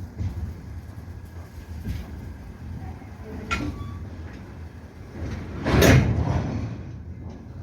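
Slow container freight train rolling past, a steady low rumble. There is a short knock about three and a half seconds in and a louder bang near six seconds.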